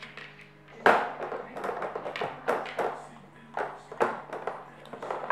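Lids and levers of a Poker Box dog puzzle toy knocking and clattering as a Miniature Bull Terrier noses them open, a string of irregular sharp taps with the loudest about a second in.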